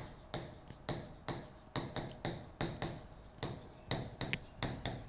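Writing on a blackboard: an irregular run of short sharp taps, about two to three a second, as the letters are struck onto the board.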